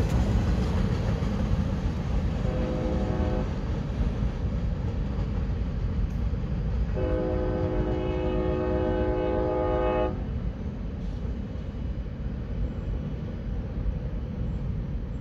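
Freight train horn sounding from the locomotive, one short blast about two and a half seconds in and a long blast of about three seconds starting around seven seconds in, over the low rumble of the CSX boxcar train rolling away. The rumble drops off a little after the long blast.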